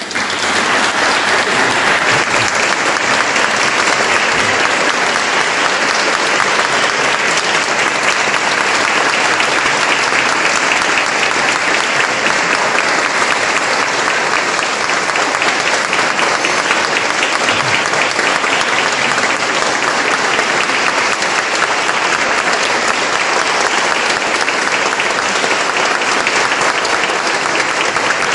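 Audience applauding steadily and at length after a band's piece ends.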